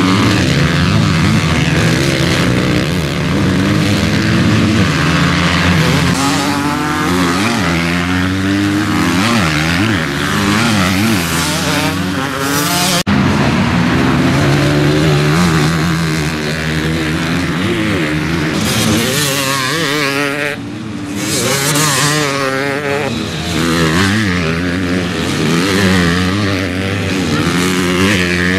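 Several motocross bikes racing past on the dirt track, their engines revving up and down, overlapping, as they accelerate and shift; a brief lull about twenty seconds in.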